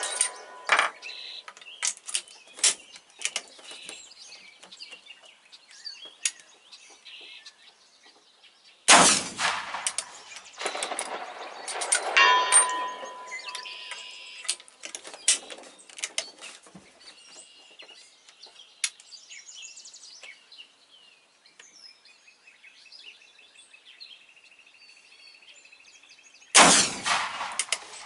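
Two shots from a .45-70 rifle, about nine seconds in and again near the end, each a single loud crack. Between them come metallic clicks and clinks of the rifle being reloaded, and a ringing metallic ding about three seconds after the first shot.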